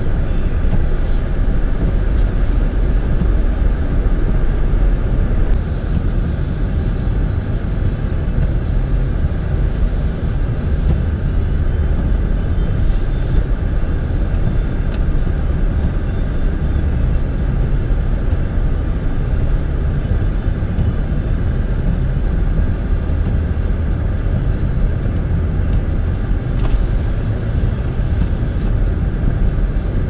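Steady low rumble of a vehicle heard from inside its cabin as it drives slowly through deep snow, with a few faint ticks.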